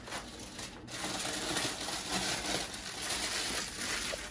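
Aluminium foil being peeled off a foil pan and crumpled into a ball by hand: an irregular crinkling rustle.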